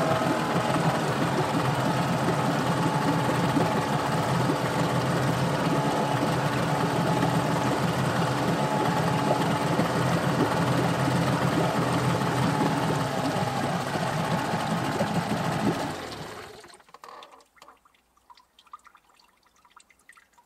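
Yamaha 8HP (8CMH) two-stroke outboard running steadily with its leg in a test barrel, the propeller churning the water. About sixteen seconds in the engine stops, leaving only a few faint ticks.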